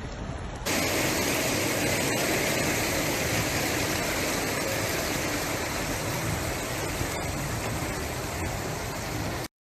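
Loud, steady rushing of water, like floodwater or a downpour, starting suddenly less than a second in and cutting off abruptly near the end.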